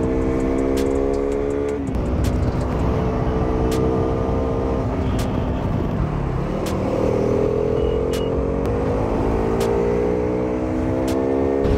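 Sport motorcycle engine pulling under acceleration, its pitch climbing steadily. The pitch drops at a gear change about two seconds in, falls away around six seconds as the throttle eases, then climbs again to the end.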